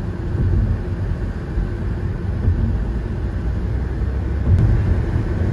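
Steady road noise inside a moving car's cabin: a low tyre and engine rumble while driving on the highway.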